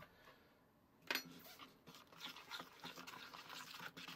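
Wooden spoon stirring thick chocolate cake batter and milk in a bowl: a knock about a second in, then faint, irregular wet squishing and scraping as the milk is worked in and the lumps are mixed out.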